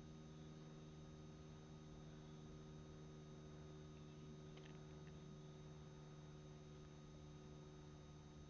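Near silence with a faint, steady electrical hum made of several constant tones.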